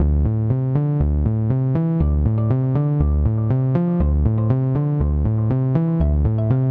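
Electronic background music: synthesizer notes over a steady, regular beat.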